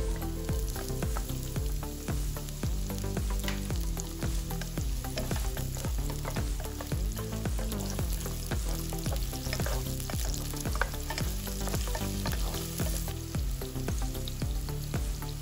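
Food sizzling in a frying pan while being stirred: a steady sizzle with many short scrapes and clicks of the utensil against the pan.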